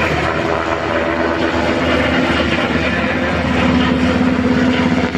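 Helicopter running close by: a steady, loud rotor chop with a continuous engine drone.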